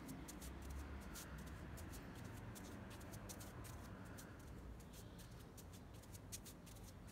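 Quiet background with a low steady rumble and a scatter of soft, irregular high clicks, several a second.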